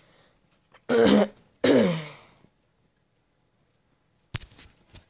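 A person clearing their throat twice in quick succession, the second longer with a falling tone. Near the end come scattered clicks and rustling from handling.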